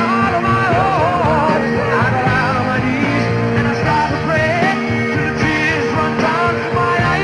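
Rock band playing live, with electric guitar, drums and a sung vocal line.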